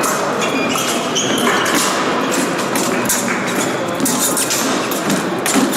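Busy sports-hall ambience: a steady mix of background voices with scattered thuds, taps and shoe squeaks.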